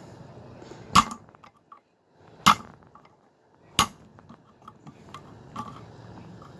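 Hammer blows on a screwdriver set against a rusted snap ring on a pedal shaft: three sharp metallic strikes about a second and a half apart, then a lighter tap, driving the ring off.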